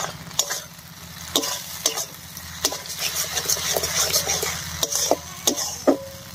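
Metal spatula stirring and scraping spice pastes through onion-tomato masala in a metal kadai, over a steady sizzle of the masala frying in oil. Irregular clicks and scrapes of the spatula on the pan, some with a brief metallic ring, come about every half second.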